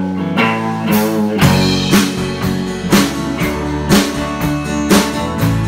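A live band playing a blues-rock groove: electric guitar over bass guitar, with drum hits keeping a steady beat.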